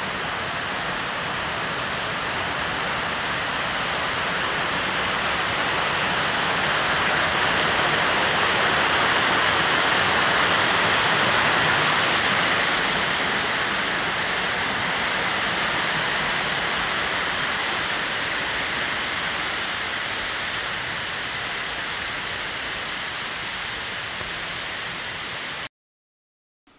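Mountain stream running: a steady rush of water that grows louder towards the middle and fades a little again, then cuts off abruptly about a second before the end.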